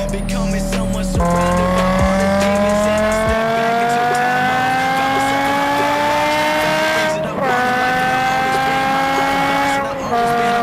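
BMW M5 E60's V10 exhaust, heard from a microphone at the boot, accelerating hard: the pitch climbs steadily through each gear and drops at the upshifts, about a second in, about seven seconds in and near the end.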